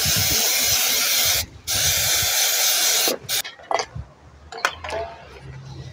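Aerosol brake cleaner sprayed onto a drum brake assembly in two hissing bursts of about a second and a half each, washing off old brake fluid; the spraying stops about three seconds in, and a few faint clicks follow.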